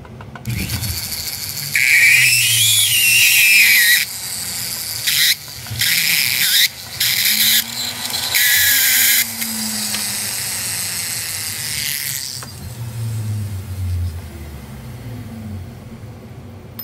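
Flex shaft rotary tool spinning a cone burr, countersinking a drilled hole in a metal sheet, run in on-and-off bursts with a wavering high squeal at times as the burr cuts. It stops about twelve seconds in.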